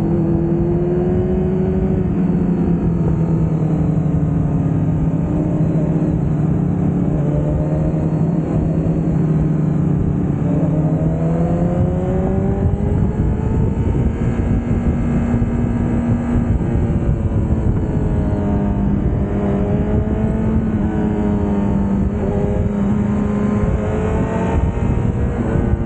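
Honda CBR1000RR inline-four engine running under way, its pitch rising and falling again and again with the throttle, over a steady rush of wind.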